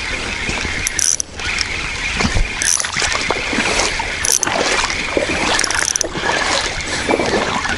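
Fishing reel being cranked to retrieve line with a hooked fish on, its gears running steadily with small clicks.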